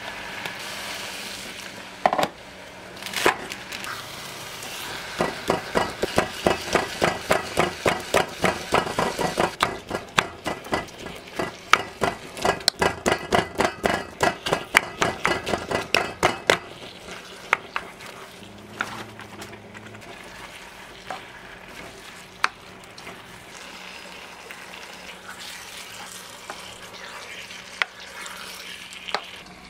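Wooden spoon stirring and scraping food frying in a nonstick wok, with a steady sizzle underneath. About five seconds in comes a quick run of strokes, about three a second, which stops at about sixteen seconds; after that only an occasional knock over the sizzle.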